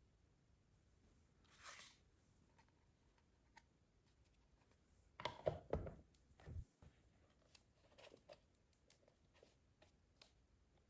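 Packaging being handled up close: a soft rustle, then a short burst of tearing and crinkling with a few knocks about five seconds in, followed by scattered light clicks.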